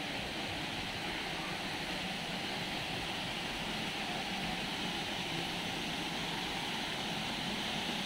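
Steady rushing of a nearby waterfall: an even, unbroken hiss of falling water.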